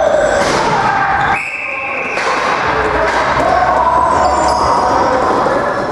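Box lacrosse game sounds echoing in an arena: players' voices and calls mixed with the knocks of the ball and sticks.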